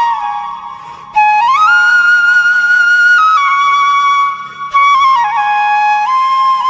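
Flute playing a slow melody of long held notes that slide up and down between pitches, with short breaths between phrases.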